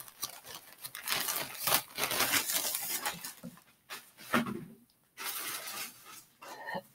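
Rustling and crinkling of handled shopping items and their packaging, in irregular bursts with short pauses.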